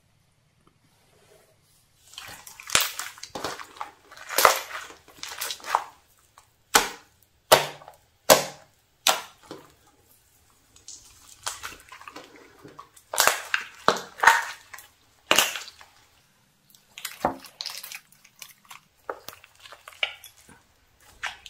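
Thick glossy slime being squeezed, poked and stretched by hand, giving loud sharp pops and wet crackles in irregular clusters with short pauses between, starting about two seconds in.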